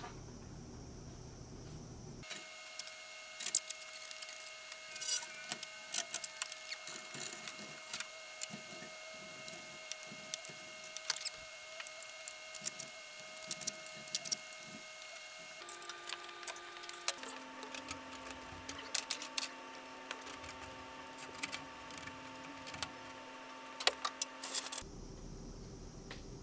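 Metal dust-collection ducting and fittings being handled and fitted overhead: scattered light metallic clinks and knocks over a steady faint hum, with the background hum changing abruptly a few times.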